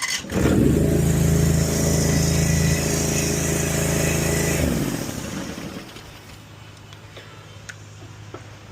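Honda GX690 V-twin engine catching almost at once and running steadily for about four and a half seconds, then shutting off and winding down. It is starting after a no-start was fixed with a carburettor cleaning and a new solenoid.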